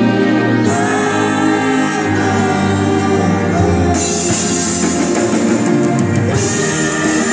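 Live band performing a song: a man singing over keyboards, electric guitar and drums, with a burst of brighter cymbal-like high sound in the middle.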